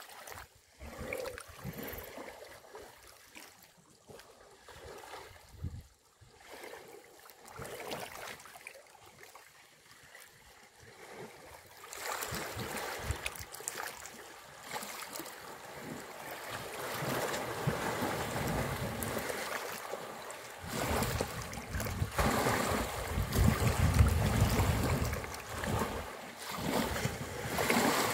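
Water sloshing and splashing as African elephants wade and swim in a waterhole, with low rumbling wind noise on the microphone. It grows louder about halfway through, with the rumble heaviest near the end.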